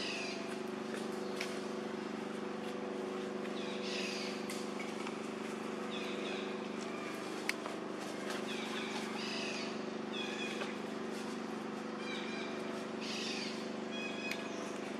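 A steady low hum under short, high chirping calls that come every second or two, with one sharp click about seven and a half seconds in.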